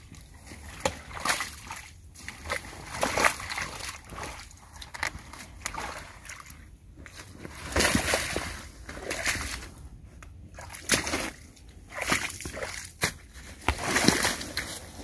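Rubber boots sloshing and splashing through shallow, partly frozen swamp water while a deer carcass is dragged through it, in irregular splashes about a second apart.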